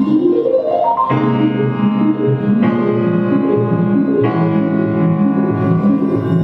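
Live improvised ensemble music led by keyboard: a quick rising run of notes, then held chords that change twice, over a busy lower line.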